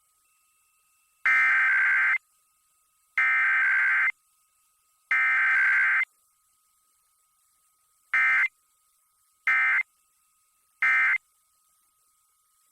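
Emergency Alert System SAME data tones for a test alert. Three one-second bursts of buzzing data tones about two seconds apart form the header, and near the end three short bursts form the end-of-message code. No attention tone or voice message comes between them.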